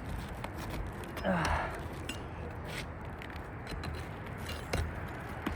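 Scattered light clicks and scrapes from working an asphalt roof shingle loose from its nails, with a short falling exhale, like a grunt of effort, about a second and a half in.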